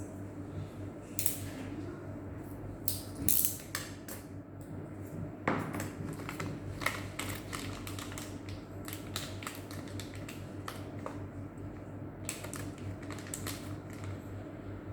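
Irregular small clicks and taps of hard plastic and metal laptop parts being handled and fitted, denser from about six seconds in, over a steady low hum.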